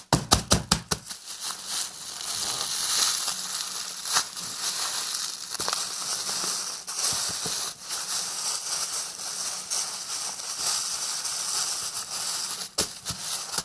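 Soap-soaked sponge being squeezed and kneaded inside a sealed plastic fridge bag, the foam and plastic making a steady crackling, squishing noise, with a few sharp taps in the first second.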